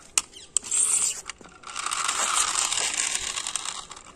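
A few sharp clicks as a plastic toy cement mixer truck is handled and put down. These are followed by about two seconds of rapid ratcheting whir as it is pushed and rolls across rough concrete, fading near the end.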